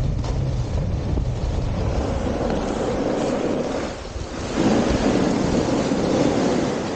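Wind buffeting the camera microphone and skis hissing over groomed snow on a downhill run, growing louder about four and a half seconds in.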